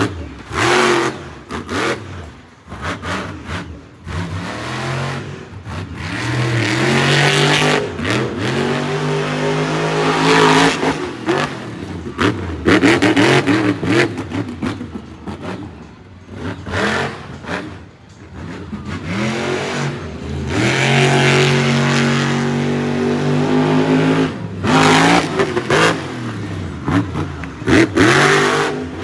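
Monster truck engine revving hard, again and again, its pitch rising and falling as the throttle is opened and closed.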